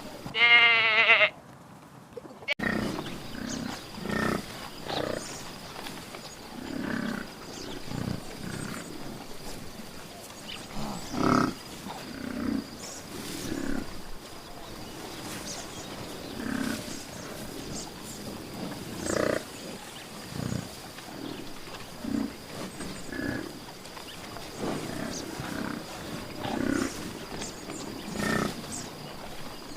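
Animal calls: one loud drawn-out call with a falling pitch near the start, then, after a brief gap, a long series of short low grunting calls at irregular intervals of about a second.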